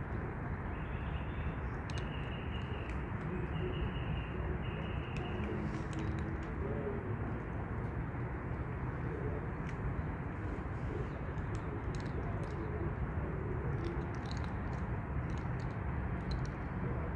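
Doves cooing softly now and then, and a small bird chirping in the first few seconds, over a steady background hiss. Faint scattered clicks come from cats eating close by.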